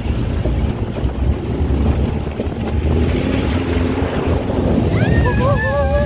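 Open-top off-road jeep's engine rumbling as it moves into a shallow river crossing, with wind buffeting the microphone and water sloshing. About five seconds in, a long wavering pitched sound comes in on top.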